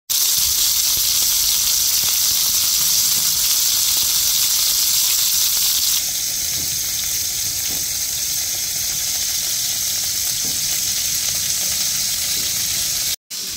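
Hamburger patties sizzling steadily as they fry in oil in a pan. About halfway through the sizzle steps down to a quieter level, and near the end it cuts out for a moment.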